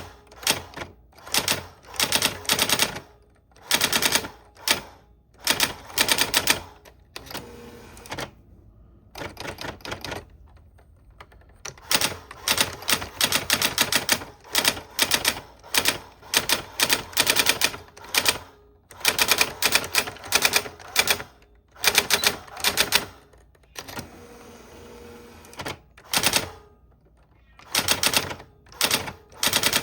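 Old typewriter being typed on: quick runs of sharp key strikes in bursts, with a couple of short pauses between them.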